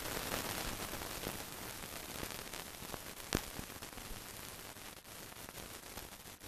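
Hiss and crackle of an old film soundtrack with no recorded sound on it: a steady hiss that fades slightly, broken by a few clicks, the sharpest about three seconds in.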